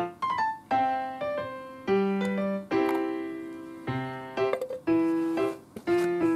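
Background piano music: a melody of single struck notes, each ringing and fading, a few notes a second.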